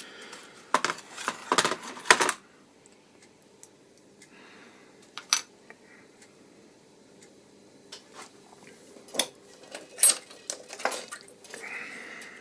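Small plastic parts of a Fluke clamp meter being handled on a bench: a quick run of clicks and clatter about a second in, then scattered single clicks and taps.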